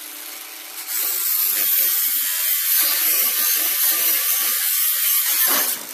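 Cordless angle grinder grinding through the rolled hem edge of a VW bus door skin, throwing sparks, to split the outer skin from the door's inner frame. It picks up again about a second in after a brief lull, runs steadily, then winds down near the end.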